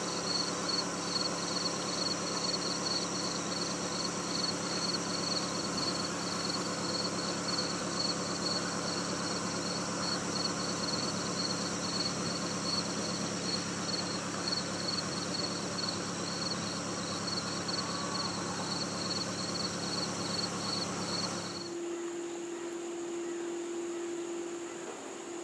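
Insects, cricket-like, chirping in a rapid, steady high trill over a steady low hum. About three-quarters of the way through, the sound changes abruptly: the hum stops and a lower-pitched pulsing trill takes over.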